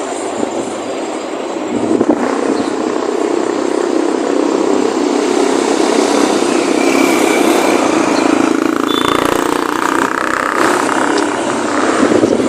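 Motor vehicle noise: steady engine and road noise, getting louder about two seconds in.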